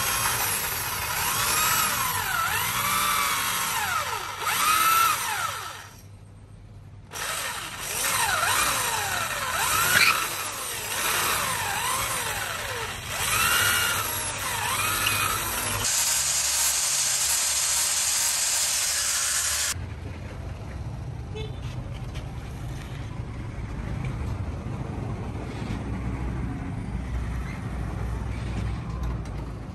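Electric drill boring into a wooden handle, its motor whine rising and falling in pitch as the trigger is worked, with a brief stop about six seconds in and a harsher hiss near the middle. About two-thirds of the way through the drilling cuts off, leaving a low steady rumble.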